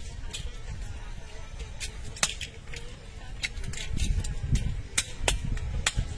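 Scallop shells clicking and clacking as scallops are shucked by hand with small knives: sharp, irregular clicks about every half second, with a low rumble in the second half.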